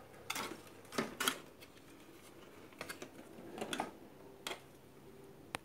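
A few scattered clicks and light knocks as a CRT television's circuit board and plastic chassis are handled by hand.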